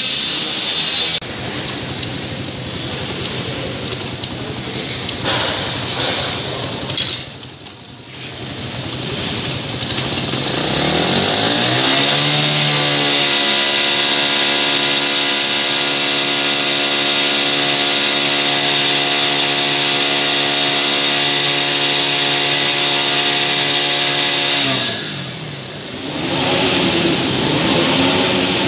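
Runner motorcycle engine on a bench engine-test stand, with workshop machine noise at first. The engine's speed then rises to a steady pitch, holds it for about twelve seconds, and runs down near the end.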